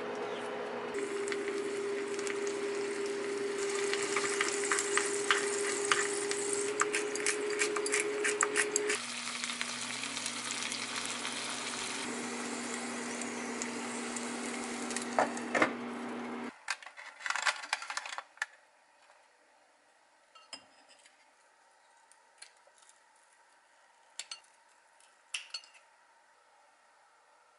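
Sweet corn sizzling in a small frying pan while a wooden spoon stirs it and clicks against the pan, over a steady low hum. About sixteen seconds in, the sizzle and hum cut off, leaving a quiet stretch with a few light clicks of utensils.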